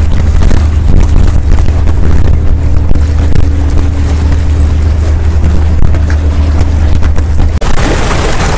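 Wind buffeting the microphone: a loud, steady low rumble that breaks off abruptly near the end.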